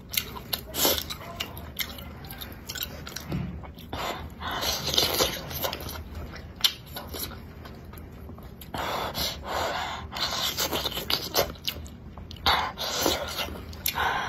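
Close-up chewing of a mouthful of spicy sausage, with smacking and clicking mouth sounds coming in irregular spurts.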